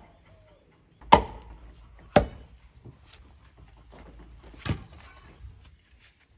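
Axe chopping the end of a wooden pole on a chopping block to sharpen it to a point: three sharp strikes, about a second in, a second later, and again a little before five seconds, the first two the loudest.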